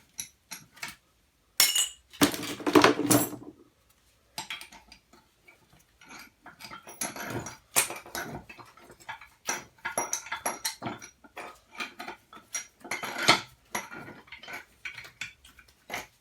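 Pieces of scrap copper and brass clinking and clattering against each other as they are handled and tossed while being sorted, an uneven run of metallic knocks with a louder clatter about two to three seconds in and again near the end.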